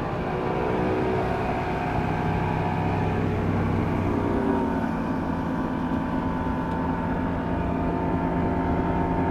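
Two-stroke outboard motor running hard as the boat speeds across the water, heard with wind rushing over a clip-on lapel mic. The engine note shifts slightly about halfway through.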